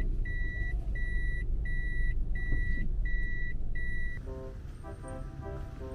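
A vehicle's reversing warning beeping: a steady high beep repeating about every 0.7 seconds over low engine and road rumble. It stops about four seconds in, and soft background music follows.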